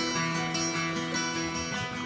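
Instrumental background music led by a plucked guitar, with notes held and changing about every half second.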